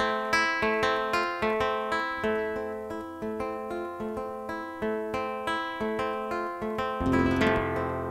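Acoustic guitars playing an instrumental tune in flamenco-rumba style, picked notes in a steady rhythm. About seven seconds in, a louder, fuller strummed chord comes in.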